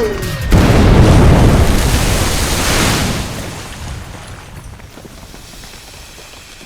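Cartoon explosion sound effect: a sudden loud blast about half a second in, whose rumble dies away slowly over several seconds.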